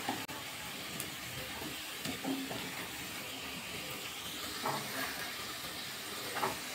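Sliced onions sizzling steadily in hot mustard oil in a kadai, nearly browned, with a few soft scrapes as they are stirred with a wooden spatula.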